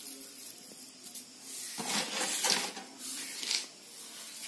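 Bare hands sweeping and scooping loose mustard seeds across a concrete floor: a gritty, rustling scrape in two strokes, a longer one about two seconds in and a shorter one soon after.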